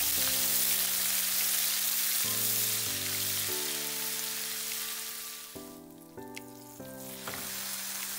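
Garlic, ginger and chili paste sizzling in hot mustard oil in a wok as it is stirred with a spatula. The sizzle thins out briefly about six seconds in, then picks up again.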